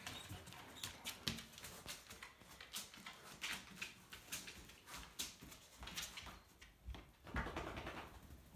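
A black Labrador retriever's claws clicking and tapping on hard floors in an uneven rhythm as she walks, limping on her right back leg from a torn cruciate ligament. A louder rustling sound comes near the end.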